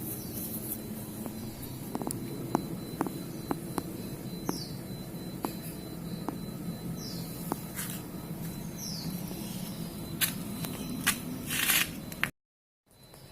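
Small snapping clicks and rustling of hands picking bilimbi flowers off the branch, with a few short falling chirps in the background. The sound cuts out abruptly near the end.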